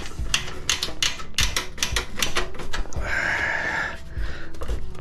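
Pliers and loose parts clinking and clattering against the sheet-metal housing of a drinking fountain as a cotter pin is worked out, in quick irregular clicks. A short rasping scrape comes about three seconds in.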